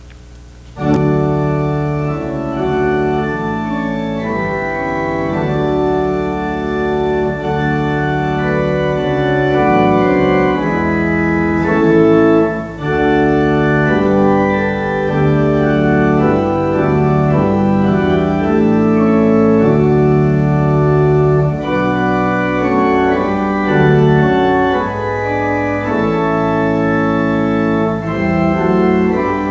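Church organ playing sustained chords that change every second or so, starting suddenly about a second in.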